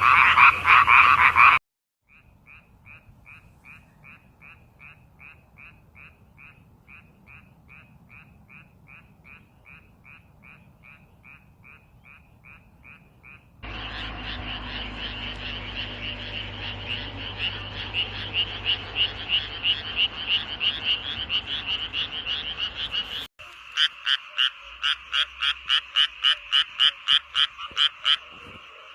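Frogs calling in a string of separate recordings cut one after another. Each is a run of evenly spaced pulsed calls, about three a second: a loud dense trill at first, a quieter series, then a louder chorus, then a sharp cut to loud rapid pulses that drop away to a faint call near the end.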